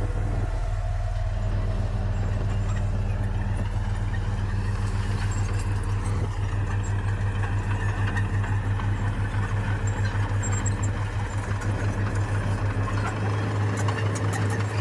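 Bulldozer's diesel engine running at a steady speed with a fast, even throb.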